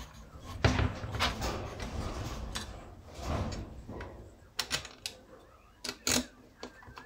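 Handling noise from bolts being fitted into a chainsaw crankcase with a hand tool: irregular knocks, clicks and rubbing of metal parts and tools on a tabletop, with a few sharp clicks in the second half.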